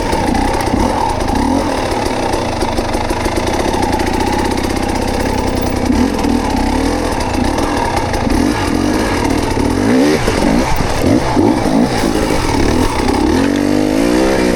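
Off-road motorcycle engine being ridden over rough trail, its pitch rising and falling as the throttle is worked, with a sharp rev near the end.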